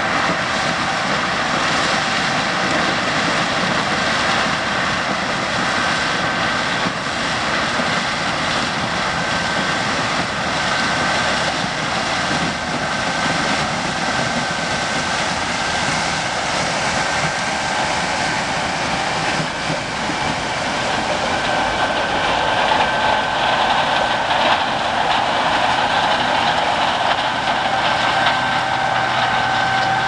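Massey Ferguson 9540 combine harvesting corn: engine and threshing machinery running steadily with a thin, constant whine, growing a little louder in the last third as the combine comes close.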